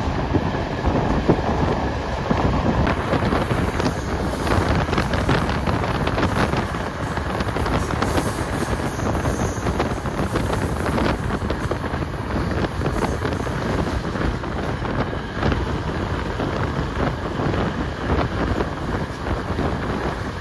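Wind buffeting the microphone over the steady running noise of a moving train.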